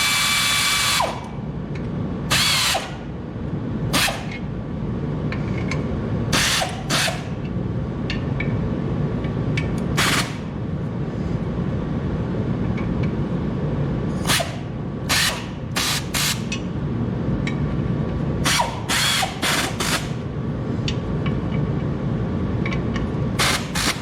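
A power drill runs steadily for about a second, then in many short bursts, often several in quick succession, driving the pressure plate bolts down against the clutch springs. A steady low hum runs underneath.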